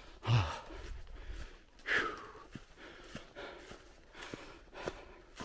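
A hiker breathing hard while climbing, with a short voiced exhale near the start and a loud breath about two seconds in, over footsteps on dry fallen leaves, about two steps a second.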